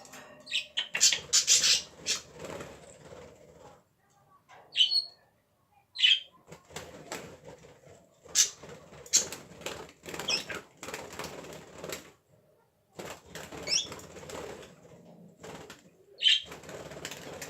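Pet parrot making several spells of rapid, noisy bursts lasting a few seconds each, with short high squeaks between them.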